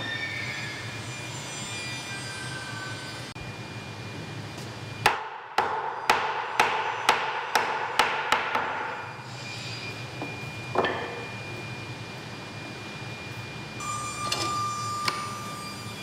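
Hammer blows knocking a timber brace into its joint on a wooden wall post: a run of about eight sharp wooden knocks, roughly two a second, then a single knock a couple of seconds later.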